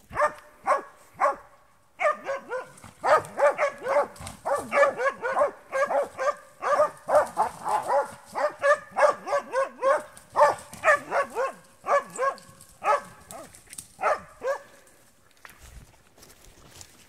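Spitz hunting dog barking in fast, steady repeated barks, about two to three a second, the way it bays a badger. It barks three times, pauses briefly, then barks on without a break and stops near the end.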